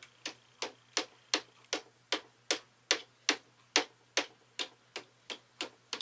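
Small plastic-faced hammer tapping a steel music-wire pin through a pilot hole in a wooden rifle stock: a steady run of about sixteen light, sharp taps, a little under three a second.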